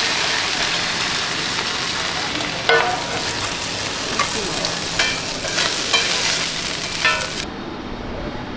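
Hoy tod, a batter-and-seafood omelette, sizzling in hot oil on a flat iron pan, with a metal spatula clinking and scraping against the pan several times. The sizzle stops abruptly near the end.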